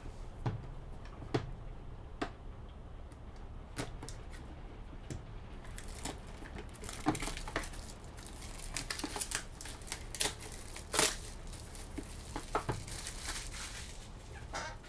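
Plastic shrink-wrap being torn and crinkled off a trading-card hobby box: a run of sharp crackles and clicks, sparse at first and busier from about halfway through.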